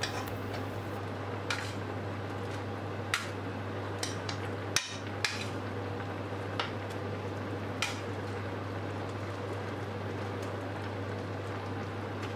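Metal kitchen tongs clicking and tapping against a frying pan as breaded chicken fillets are placed into simmering cream sauce: about nine sharp clicks over the first eight seconds, then none. Under them run a steady hiss and a low hum.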